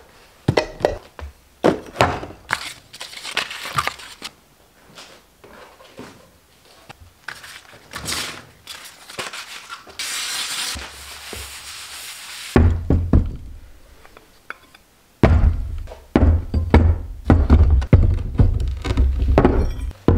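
Workbench clutter being handled, with clatters and knocks. About ten seconds in, something pours from a metal cup onto the table for about two seconds. From about twelve seconds, background music with a steady low beat plays over heavy thunks as rusty brake calipers and brackets are set down on the bench.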